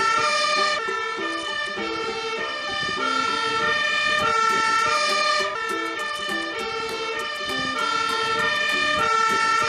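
Fire engine's two-tone siren, switching back and forth between a higher and a lower note every half second or so.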